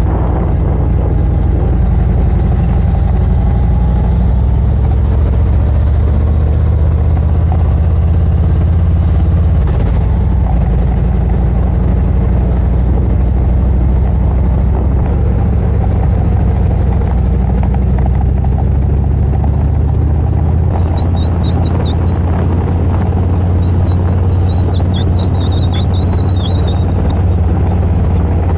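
Motorcycle engine running steadily under way, with wind and road noise; the engine note shifts slightly a few times. Faint high chirps sound over it about two-thirds of the way through.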